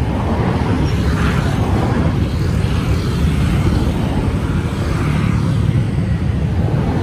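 Steady low rumble of busy city street traffic.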